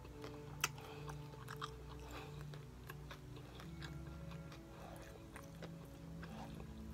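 A person chewing food close to the microphone: soft wet mouth clicks and light crunches, with a sharper click about half a second in. The food is a pork-and-vegetable potsticker.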